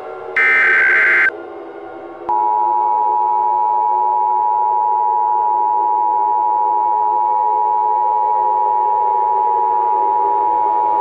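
Emergency Alert System tones: a one-second burst of the SAME digital header, then, after about a second's pause, the two-tone EAS attention signal (853 and 960 Hz sounded together) starts and holds steady.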